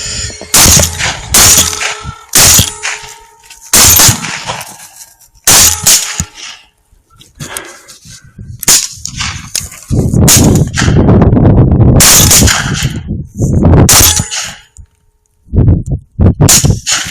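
Several rifles firing at hogs right after a countdown: a string of loud, irregularly spaced shots, each with a short ringing tail, and a dense stretch of rapid shooting around ten to thirteen seconds in.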